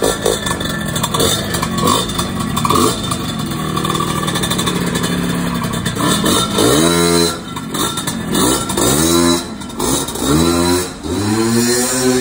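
Suzuki V100 scooter's two-stroke engine running while its carburettor is being set. It runs fairly steadily at first, then from about halfway is revved in repeated throttle blips, the pitch rising and falling roughly every second and a half.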